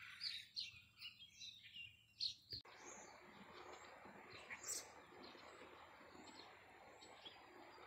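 Faint chirping of small birds over quiet outdoor background. About two and a half seconds in, the background changes abruptly to a steady faint hiss, with fewer and fainter high chirps.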